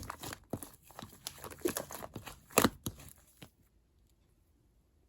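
Mixed slime, purple clear slime worked together with white fluffy slime, being squeezed and stretched by hand, giving irregular crackling and popping clicks. The loudest pop comes about two and a half seconds in, and the sounds stop about three and a half seconds in.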